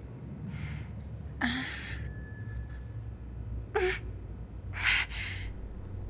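A woman gasping and breathing sharply in short, ragged breaths. Two of the gasps catch briefly in the voice, and the loudest come about a second and a half in and near the five-second mark. A steady low drone runs underneath.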